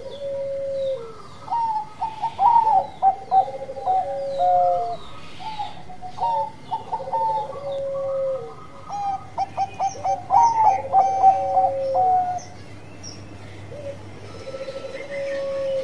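Bangkok-type zebra dove (perkutut) cooing: repeated phrases of quick staccato notes, each ending in a longer held note, coming every couple of seconds.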